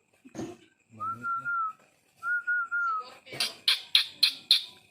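Two held, slightly wavering whistled notes, then a quick run of about six harsh, sharp chirps from a lovebird.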